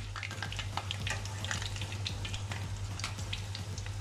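Batter-coated chicken drumsticks deep-frying in hot oil in a stainless steel pot during the first fry: a dense, steady crackle of popping bubbles, with a low steady hum underneath.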